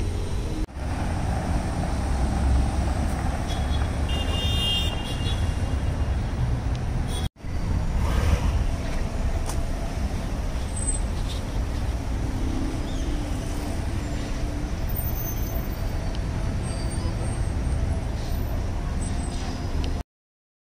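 Street traffic noise: a steady low rumble of car engines and tyres, broken by two brief dropouts about one and seven seconds in.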